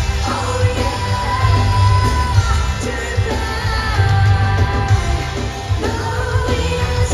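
Live pop-rock band playing, with a sung vocal line over a heavy bass beat.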